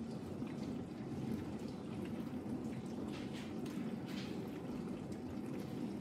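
Ariston dishwasher running its test programme: water rushing and splashing steadily inside the tub, with a few sharper splashes.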